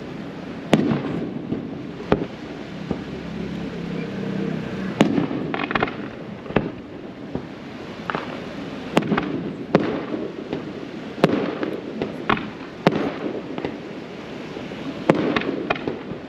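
Aerial fireworks shells bursting: about a dozen sharp bangs at uneven intervals, roughly one to two seconds apart.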